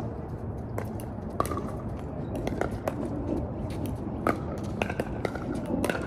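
Pickleball paddles hitting the ball from games on several courts: sharp, irregular pops, about a dozen of them, over faint distant voices.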